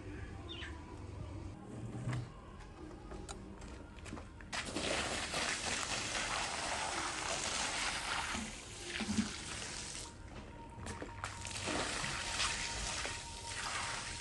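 Water from a hose pouring and splashing onto a wet rug on a hard floor. It starts about four seconds in, drops away briefly near the middle, then comes back.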